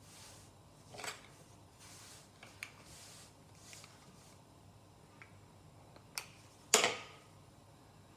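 Quiet handling noise at a floured worktop: soft swishes of hands and raw dough pieces moving over the counter, with a few light clicks and taps. The loudest is a sharp knock near the end as the pastry wheel is put down on the counter.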